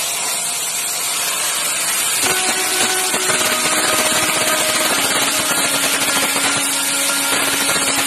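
Air carbon arc gouging: a loud, steady hiss of compressed air from the gouging torch. About two seconds in the arc strikes and adds a buzzing hum under the hiss as the carbon rod gouges out the defective butt-joint weld.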